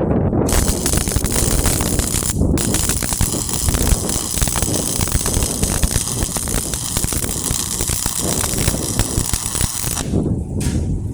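Electric arc welder crackling as a bead is laid: it starts about half a second in, breaks off briefly after about two seconds, then runs on until it stops near the end.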